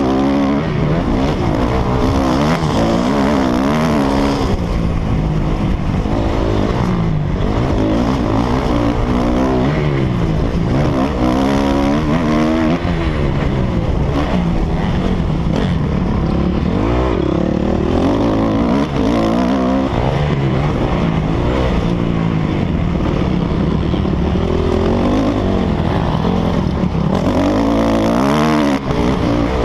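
Dirt bike engine being ridden hard, its pitch rising and falling over and over as the rider opens the throttle and backs off.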